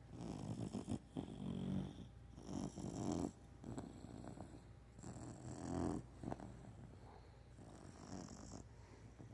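Snoring: a run of rasping breaths one to two seconds apart, some with a low buzzing tone, fading to softer breaths about six seconds in.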